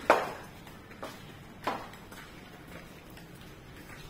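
Footsteps on a tiled floor and steps: a few irregular knocks, the first the loudest.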